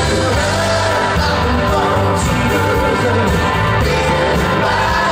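Live rock band playing with singing: guitars, keyboards, bass and drums over a steady beat, heard from the crowd through the venue's PA.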